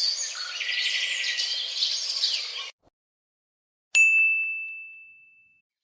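A single bright ding, like a small bell or notification chime, struck once and ringing out over about a second and a half. Before it, a stretch of busy background ambience with chirps cuts off suddenly, leaving a moment of silence.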